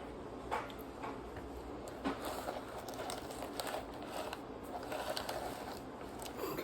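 Quiet handling noises at a table as gingerbread-house pieces and icing are worked by hand: scattered light taps, clicks and crinkles over a faint steady room hum.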